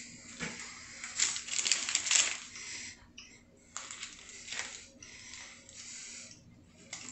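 Eating and food-handling noises: chewing and rustling of a burger and a fried chicken sandwich, heard as a few irregular crunching, rustling bursts, the longest about a second in.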